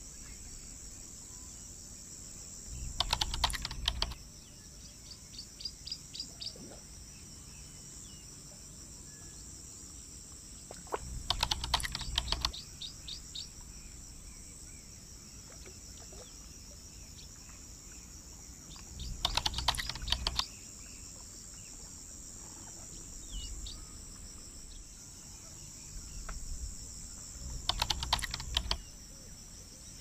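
A steady high-pitched insect trill, broken about every eight seconds by a burst of rapid clicking chatter lasting a second or so.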